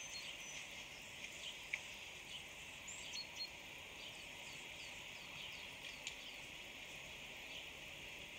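Faint outdoor ambience: a steady hiss with small birds chirping, including a run of short falling chirps about three a second in the middle.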